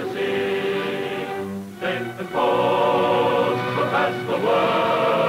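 Choir singing the closing theme song, holding long notes, with a brief break about two seconds in.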